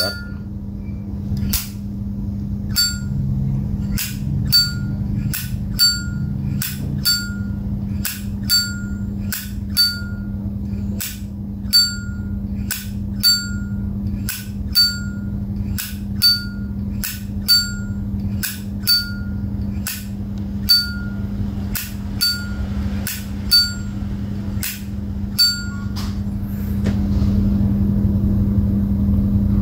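1994 Zippo lighter's lid flipped open and snapped shut over and over, about once every second and a half. Each stroke gives a crisp click with a short ringing metallic ping. This is the lighter's original, unmodified opening sound, with its factory cam and hinge.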